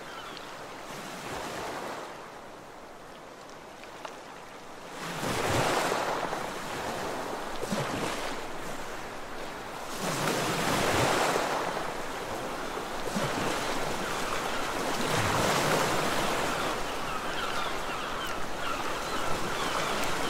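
Sea surf: waves breaking and washing in, each swell rising and falling back about every five seconds.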